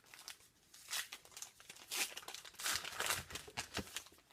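A hockey card pack's wrapper crinkling and tearing as it is opened, with the cards rustling: a string of short crackly rustles, loudest about two and three seconds in.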